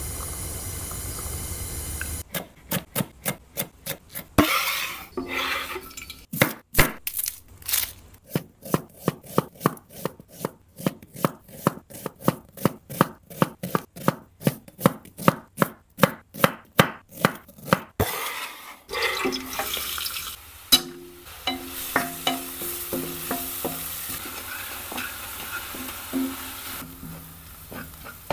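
A short steady hiss as oil goes into a steel pan. Then a chef's knife chopping a red onion on a bamboo cutting board: sharp, regular knocks, about three to four a second. From about two-thirds of the way in, a wooden spoon stirs chopped onion and green chillies frying in oil in a steel kadhai: sizzling with scrapes against the pan.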